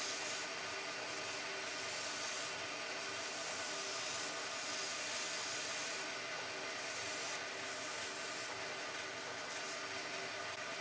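Wood lathe running with a sanding sponge pressed against the spinning wood: a steady hiss of abrasive on wood that swells and eases, over the lathe motor's hum.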